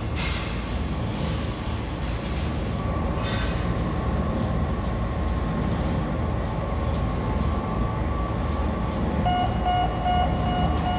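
Steady low rumble of industrial workshop machinery with a faint whine. About nine seconds in, a pulsing electronic warning alarm starts beeping, the sign of a machine running into danger that is about to blow.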